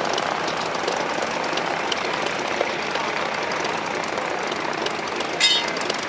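Light aircraft engine running steadily as a noisy drone, with one brief sharp high-pitched squeak about five and a half seconds in.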